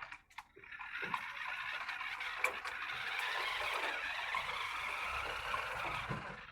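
Large remote control car driving, its motor and tyres making a steady whirring, rolling noise that starts about half a second in and stops just before the end, with a few clicks at the start.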